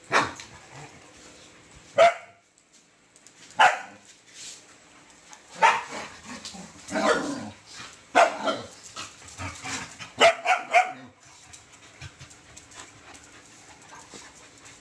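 Two dogs play-fighting, barking in short sharp bursts, about a dozen over the first eleven seconds, then a lull near the end.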